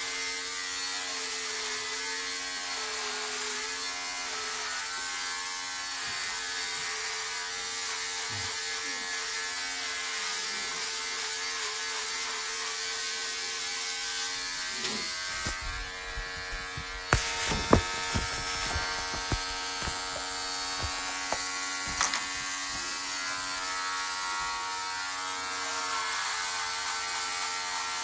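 Electric shaver buzzing steadily as it is run over a shaved scalp. A little past halfway comes a run of knocks and clicks from handling.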